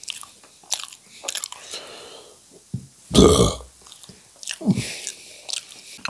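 A man's mouth chewing and smacking with short clicks, then a loud burp about three seconds in and a smaller one a little over a second later.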